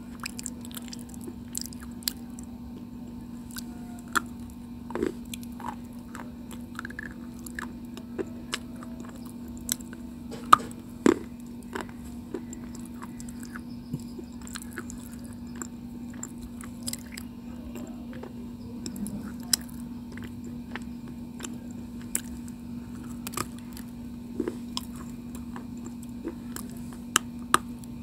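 Close-up biting and chewing of a chalky white stone: sharp, irregular cracks and crumbles every second or so, the loudest about ten and eleven seconds in, over a steady low hum.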